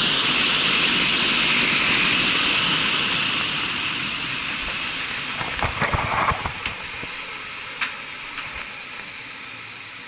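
Marley cooling tower's fan drive (electric motor, coupling shaft and gearbox) running on a test run after a gearbox repair, with a loud rush of air and a high whine. From about three seconds in, the whine slowly drops in pitch and the sound fades, with a few metallic knocks around six and eight seconds.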